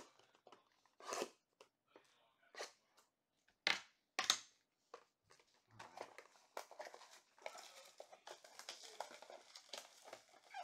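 Cardboard trading-card blaster boxes being handled, with four short sharp sounds in the first half. From about halfway, clear plastic shrink-wrap crinkles steadily as it is torn off a box.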